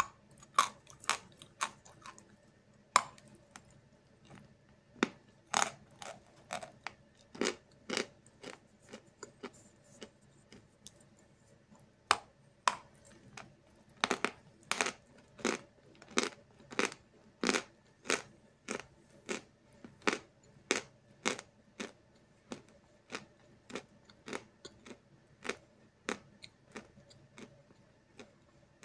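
Crunching of a block of Snezhok chalk as it is bitten and chewed: a long run of sharp crunches, sparse at first and then about two a second.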